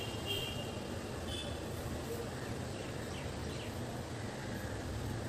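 Steady low background rumble, with a few short high chirps near the start and again about a second in.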